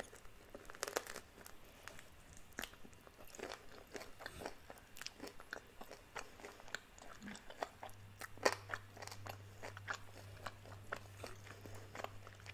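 Crunching bites and chewing of crispy breaded fried chicken wings: many short crackles of the coating breaking, the loudest crunch about eight and a half seconds in.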